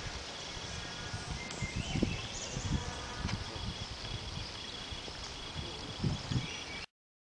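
Outdoor ambience by the water: a faint steady high insect drone, a few short chirps, and soft low thumps of wind or handling on the microphone. It cuts off abruptly near the end.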